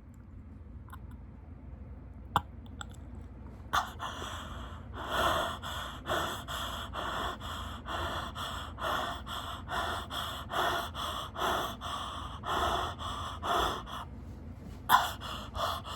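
A person breathing hard: quick, noisy breaths about two a second, starting about five seconds in after a quieter stretch with a single click, with one louder breath near the end.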